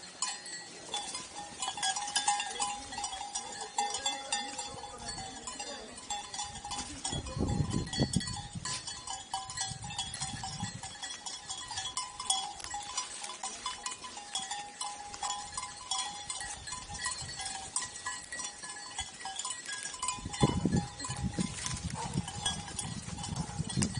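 A grazing flock of sheep: bells ringing and clinking steadily among the animals, with bleats now and then. Two spells of low rumble come through, about a third of the way in and near the end.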